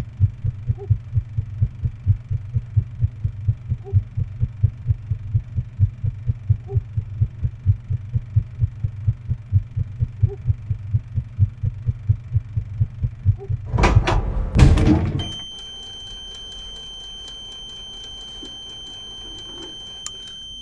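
A rapid, heartbeat-like low thumping, about three beats a second. Near the end two loud crashing bursts cut it off, followed by a steady high-pitched tone over faint room noise.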